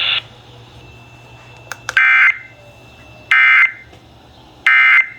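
Emergency Alert System end-of-message data bursts: three short, harsh digital screeches about 1.3 s apart, signalling the end of the severe thunderstorm warning. A band of hiss cuts off right at the start.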